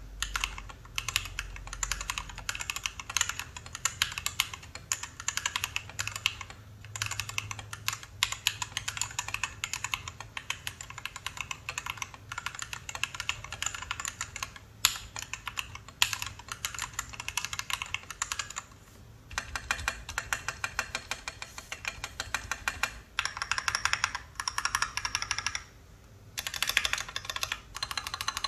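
Gamakay CK61 mechanical keyboard with TTC Y switches and XDA-profile keycaps being typed on fast: a continuous clatter of keystrokes, broken by a few short pauses.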